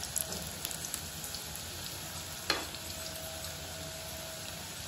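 Potato chunks deep-frying in a kadai of hot oil, a steady sizzle. A metal slotted spoon stirs them, with a few light clicks early on and one sharper tap against the pan about two and a half seconds in.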